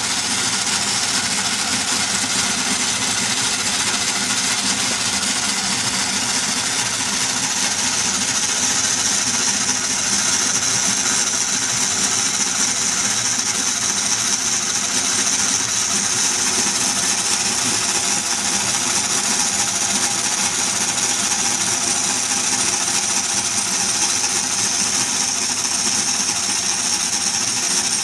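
Merkur construction-set model of a single diesel-engine cylinder running, its metal crank, push rods and rocker-arm valve gear making a steady mechanical clatter at an even speed.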